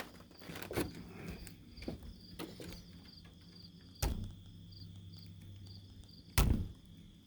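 Smith & Wesson M&P single-action out-the-front knife being worked: light clicks, then two loud sharp snaps about four seconds and six and a half seconds in as the blade fires out and locks.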